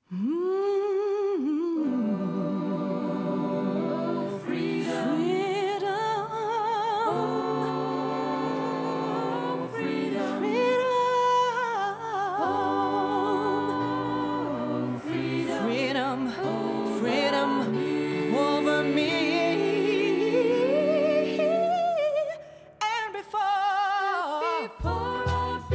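Music of several layered singing voices holding long, wavering notes without a beat. After a brief break near the end, a low pulsing beat comes in.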